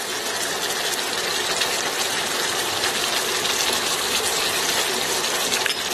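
Tomato sauce bubbling and sizzling in a saucepan at a boil, a steady hiss with small pops.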